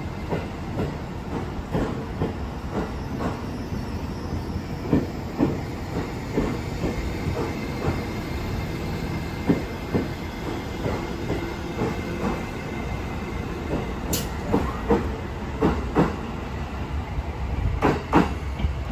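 Train running past, its wheels clacking irregularly over rail joints over a steady low rumble, the loudest clacks near the end.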